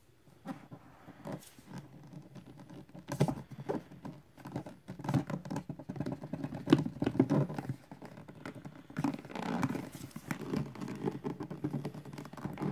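Hands crinkling and peeling the plastic shrink wrap off a sealed vinyl LP box set, with the light knocks and scrapes of the box being handled. It is an irregular run of crackles that starts about half a second in and grows louder after a few seconds.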